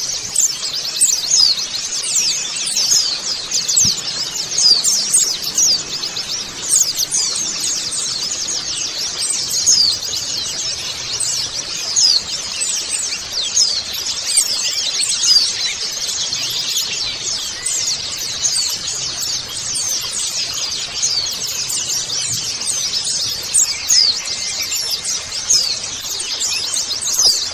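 A flock of white-eyes chattering together: many quick, high-pitched chirps and twitters overlapping without a break.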